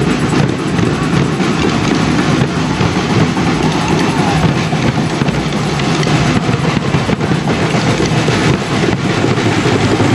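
Samba batucada percussion group playing: surdo bass drums and snare drums, loud and close.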